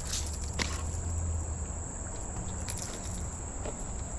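A steady, high-pitched insect chorus, like crickets, trilling without a break, over a low outdoor rumble, with a couple of faint clicks in the first second.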